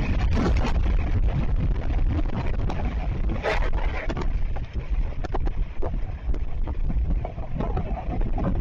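Strong wind buffeting the microphone: a heavy, steady low rumble with a thin hiss above it and scattered light clicks and knocks.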